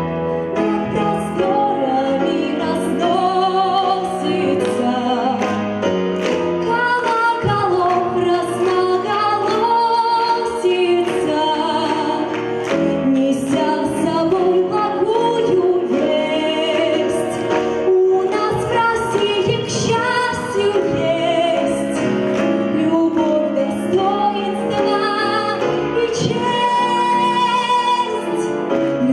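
A woman's solo voice singing a song through a microphone, accompanied by a grand piano.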